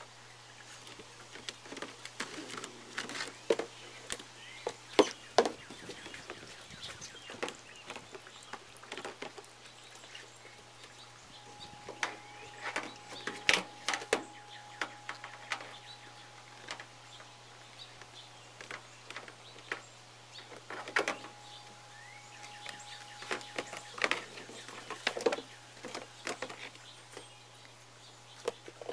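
An Airedale puppy plays with a plastic tub of water on wooden deck boards: irregular knocks, clatters and splashes as the tub is pawed, dragged and lifted in its mouth.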